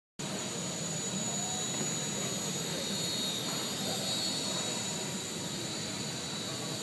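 Micro RC airplane's small electric motor and propeller whining steadily, a high thin tone that wavers slightly in pitch.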